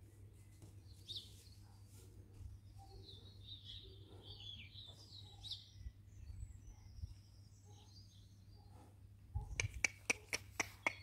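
Faint birds chirping and twittering in the background, followed near the end by a quick run of sharp clicks.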